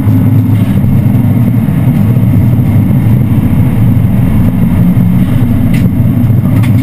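Subaru rally car's flat-four engine running hard under steady load, heard from inside the cabin.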